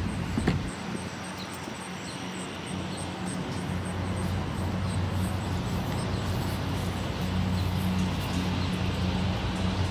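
Steady low engine hum over outdoor background noise, with a single sharp click about half a second in.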